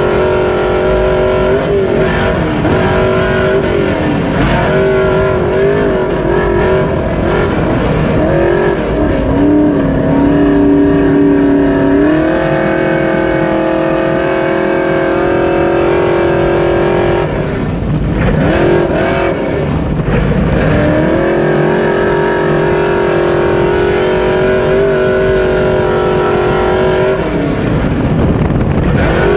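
Super stock race truck's engine heard from inside the cab, running hard at high revs. The pitch wavers early, holds steady on the straights, and twice falls away briefly and climbs back, once past the middle and once near the end, as the throttle lifts for the turns.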